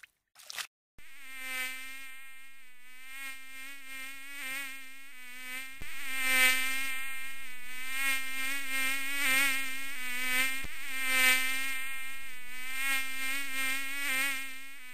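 Cartoon bee buzzing: a steady, nasal insect buzz that starts about a second in and wavers in pitch. It swells louder and softer as the bee swoops about, and grows louder a little before halfway.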